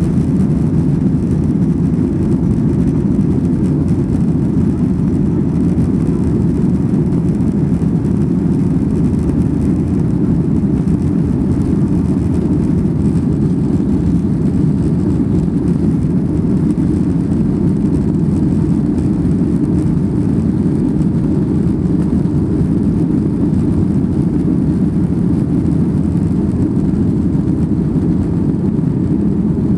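Boeing 737-800's CFM56-7B jet engines at takeoff thrust, heard from inside the cabin as a steady low rumble with rushing air, through lift-off and the initial climb.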